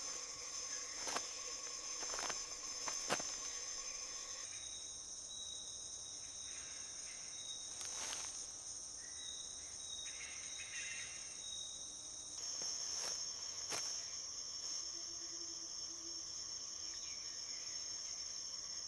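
Steady high-pitched insect chorus with a few scattered sharp clicks or snaps; the pitch of the buzzing shifts twice.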